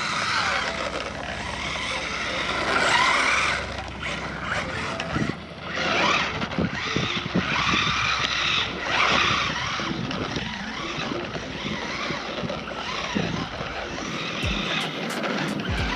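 1/16-scale brushed RC drift car (SU CHI YU 16301, also sold as JJRC Q117E) driving and drifting on slick tarmac. Its motor runs and its near-bald rubber tyres scrub as it slides, in surges that rise and fall every few seconds.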